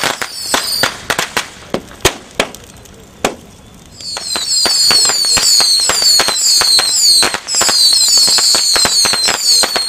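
Burning wang chuan ship and its pyre crackling with sharp, irregular cracks and pops. Over it runs a high, rapid chirping of short falling notes, which drops out about a second in and returns about four seconds in, louder.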